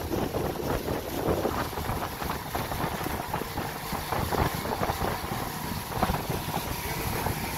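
Pontoon boat under way, its motor running steadily beneath wind buffeting the microphone and the rush of water.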